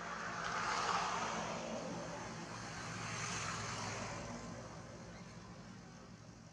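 A passing vehicle: a broad rushing noise that swells about a second in, swells again around three to four seconds, then fades away.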